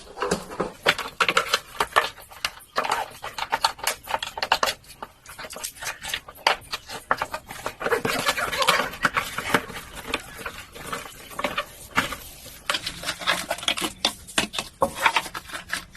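Irregular clicks, taps and knocks of parts being handled as a refrigerator's freezer fan motor is fitted onto its air duct.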